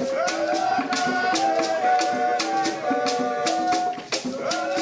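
Live hand-drum ensemble playing a steady rhythm on tall djembe-style drums, with a gourd shaker rattling on the beat and long held notes sounding over the percussion.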